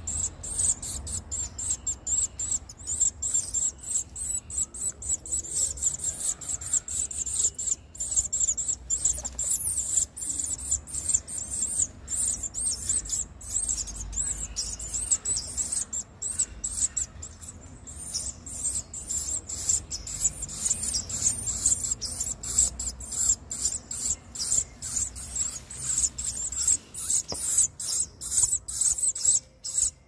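Nestling songbirds begging: rapid, continuous high-pitched cheeping from the brood as they gape for food.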